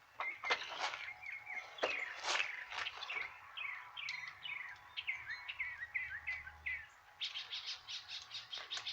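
Songbirds chirping, a string of short falling notes, breaking into a fast run of chirps, about seven a second, near the end.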